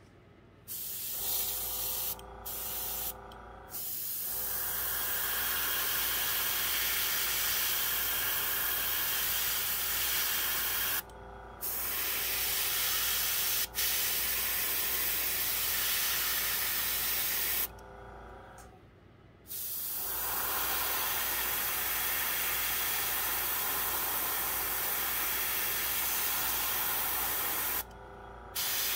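Gravity-feed airbrush spraying paint: a steady air hiss in long passes, broken by short pauses a few times, the longest about eighteen seconds in, with a low hum underneath.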